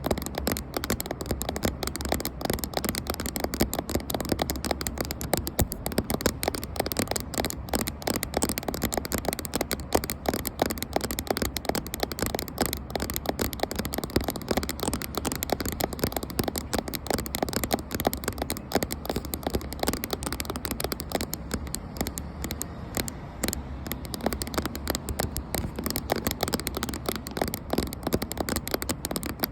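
Fingers tapping rapidly and continuously on a camera in close-up ASMR style: a dense run of many quick taps each second, without pause.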